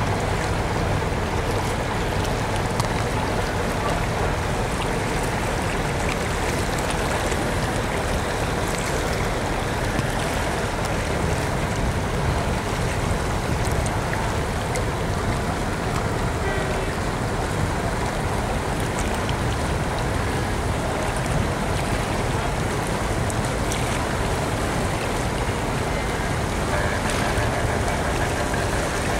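Steady rushing water with a low engine hum from a boat under way on the harbour, unchanging in level.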